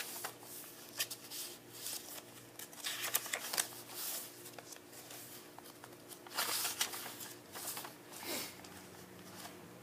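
Paper rustling as the pages, tags and cards of a handmade junk journal are handled and turned: a series of short, irregular rustles, over a faint steady hum.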